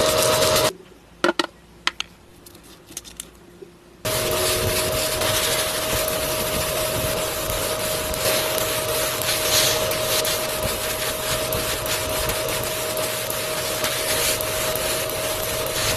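A small electric motor running with a steady whirring hum, cutting out about a second in, with a few clicks while it is stopped, then starting again about four seconds in and running steadily on.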